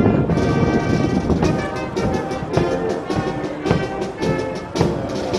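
Background music: held chords with sharp percussive hits.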